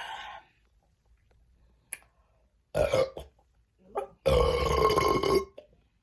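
A woman burping from the carbonation of chugged Diet Pepsi: a short burp about three seconds in, then a long one lasting over a second that falls slightly in pitch.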